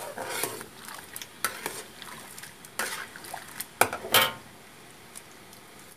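A spatula stirring and scraping around a wok of boiling palm-sugar syrup with dissolving white sugar, in a string of irregular scrapes and knocks against the pan, the loudest a little under four seconds in.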